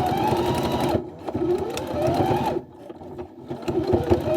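Electric sewing machine stitching hair wefts onto a wig cap, running in three short bursts. Each run starts with a whine rising as the motor speeds up, then stops abruptly: the first about a second in, the second a little past halfway, and the third starts near the end.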